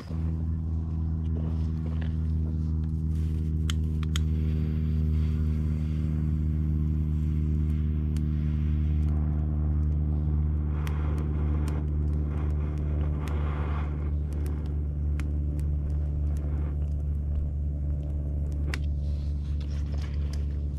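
A motor running at a steady, unchanging pitch, with a few faint clicks over it.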